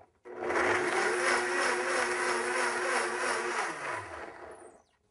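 Blendtec countertop blender blending a smoothie with frozen blueberries: the motor starts about a quarter second in, runs steadily at full speed for about three seconds, then winds down with a falling pitch and stops near the end.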